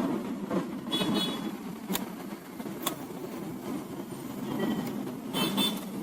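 A few sharp light clicks of metal or plastic printer parts being handled and fitted, twice about a second apart near the middle, over a steady low background rumble.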